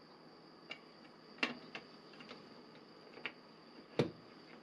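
Scattered clicks and knocks of hard plastic parts as an AEG BS 12 C2 cordless drill's motor, gearbox and switch are fitted into their plastic housing shell. There are about six of them, the loudest a dull thud about four seconds in, over a faint steady high whine.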